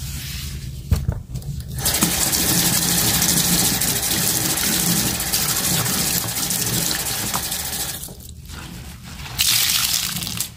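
Bathroom tap running into a porcelain sink, rinsing the bowl, with a sharp click about a second in. The water starts about two seconds in, falls away for over a second near the end, then runs again.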